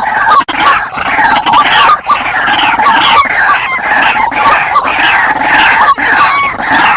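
White-breasted waterhens (ruak-ruak) calling loudly and without a break, in dense overlapping repeated calls. This is the noisy call used as a lure to draw wild birds in.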